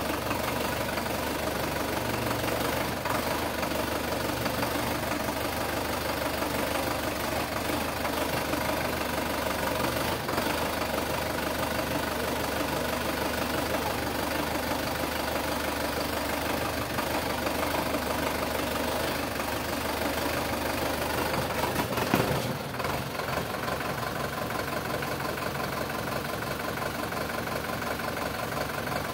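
Sonalika DI 750 tractor's diesel engine running steadily, with a brief louder surge about three-quarters of the way through.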